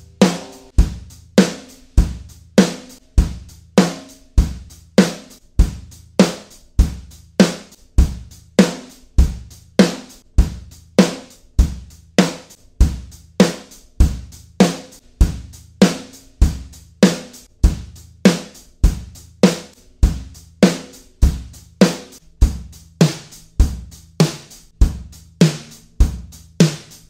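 Snare drum struck with a drumstick in steady, evenly spaced single strokes, each ringing out briefly. It is played wide open and then with a series of dampeners on the batter head (tone chips, gel pads, a furry MiniMuff, brass Snareweights, a muffling ring), each of which cuts the head's ring differently.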